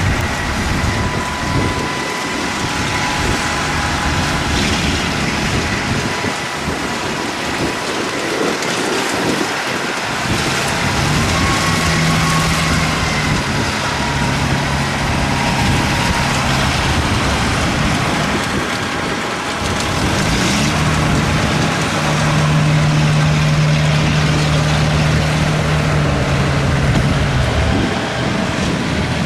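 Kubota DC70 rice combine harvester running under load: a steady diesel engine hum and machinery clatter with a thin whine above it. The engine pitch rises about two-thirds through and drops back near the end.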